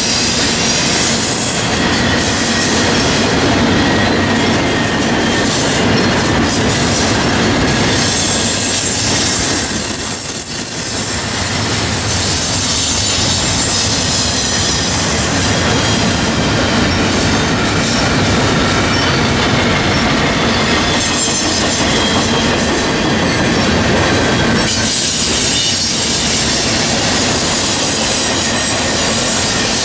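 Double-stack intermodal freight train's cars rolling past: a steady rumble of steel wheels on rail, with a brief high wheel squeal about ten seconds in.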